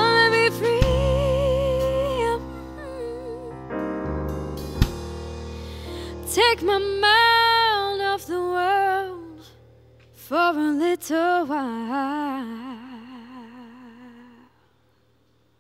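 Young female vocalist singing with vibrato over chords on a Hammond SK1 stage keyboard, ending the song on a long wavering held note that fades out about a second before the end.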